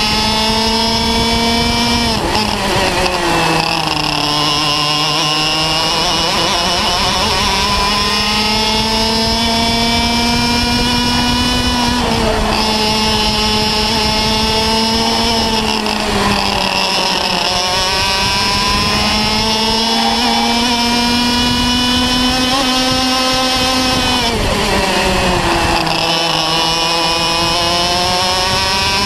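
Parilla two-stroke kart engine heard on board at race speed. Its pitch climbs steadily as the kart accelerates along each straight and falls sharply under braking about four times, at roughly 2, 12, 16 and 24 seconds in, before climbing again.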